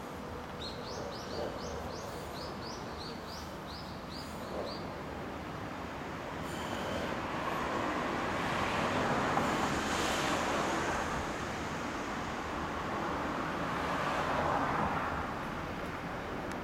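Road traffic passing: a vehicle's noise swells and fades twice, loudest about halfway through and again near the end. In the first few seconds a small bird chirps a quick run of about a dozen short rising notes.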